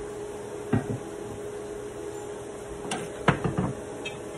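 Kitchen clatter over a steady hum: a single knock about a second in, then a cluster of knocks and clinks about three seconds in as a cut-glass bowl is set down on the counter.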